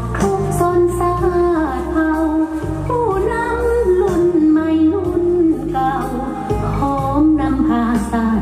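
A woman singing a slow Lao song live into a handheld microphone, her voice gliding and wavering between held notes, over steady instrumental accompaniment.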